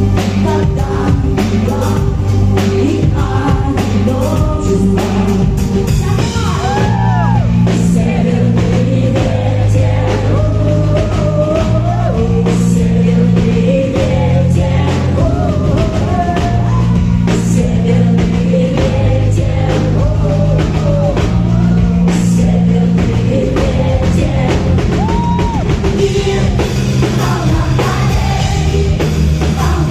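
Rock song performed with a singer over drum kit, bass and guitar: steady changing bass notes under a sung melody, with regular drum hits.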